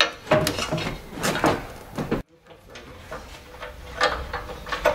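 Heavy-duty steel rear bumper clunking and scraping against the frame and hitch as it is shifted by hand into position, a run of short metallic knocks that breaks off briefly a little over two seconds in.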